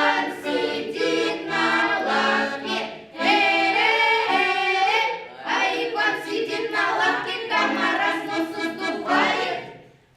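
Children's folk choir singing a Russian folk song in several long sung phrases, the voices stopping shortly before the end.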